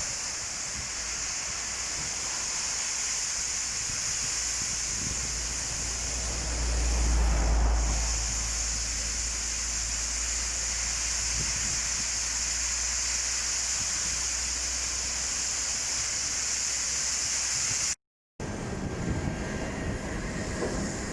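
Outdoor field sound: wind buffeting the microphone over a steady high-pitched hiss, with a stronger gust about seven seconds in. A cut near the end brings a different background with faint steady tones.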